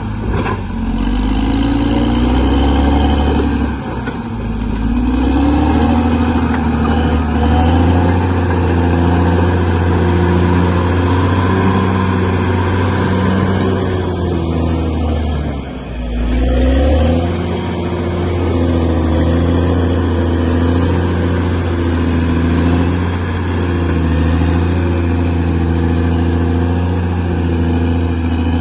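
Bulldozer diesel engine working steadily, its engine speed rising and falling, easing off briefly about four seconds in and again around sixteen seconds.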